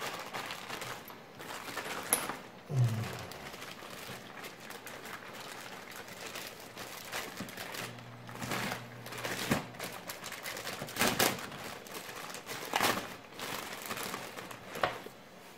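Plastic parts bags crinkling and rustling as they are handled, with scattered clicks and knocks of small parts on a table.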